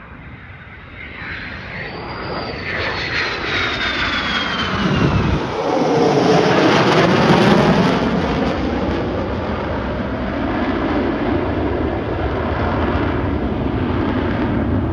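A fighter jet flying past. Its engine noise swells with a high whine that glides downward, is loudest about six to eight seconds in, then settles into a steady roar that slowly eases as the jet moves away.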